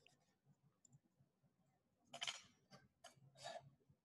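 Faint strokes of a hand vegetable peeler scraping the skin off an eggplant: four short scrapes in the second half, the first one the loudest.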